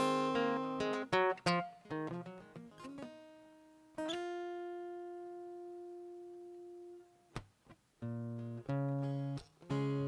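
Acoustic guitar played solo: picked notes and chords, then a single note left ringing for about three seconds, a brief pause, and strummed chords with a deep bass from about eight seconds in.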